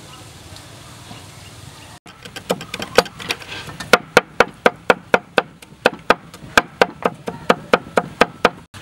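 Knife chopping garlic on a wooden cutting board: a steady run of sharp strikes, about three a second, starting about two seconds in.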